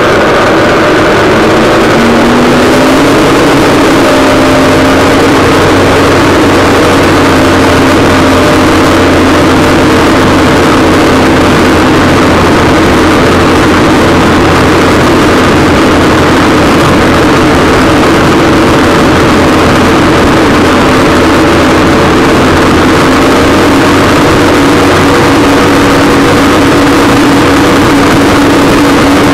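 WaveRunner personal watercraft engine running under way, picked up by a camera mounted on the craft. Its pitch climbs over the first few seconds, then holds steady at cruising speed over a heavy rush of noise.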